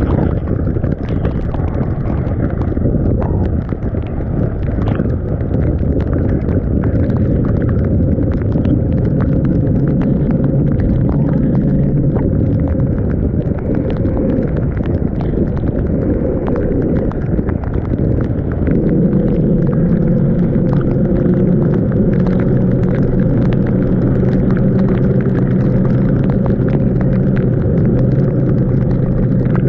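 Yamaha NMAX 155 scooter's single-cylinder engine running under way, mixed with wind rumble on the camera and many small sharp ticks. About two-thirds of the way through, the engine settles into a steady hum.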